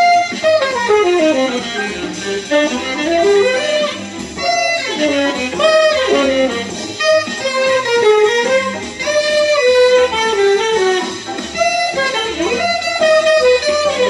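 Tenor saxophone playing a bebop jazz solo line, with quick runs that sweep down and back up in pitch.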